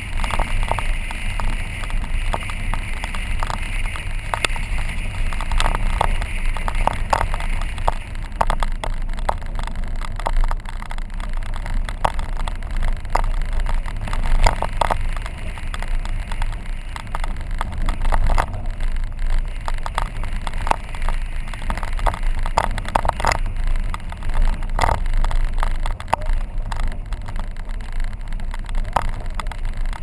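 Car driving on an unpaved dirt road: a steady low rumble of engine and tyres, with frequent irregular clicks and knocks from the rough surface.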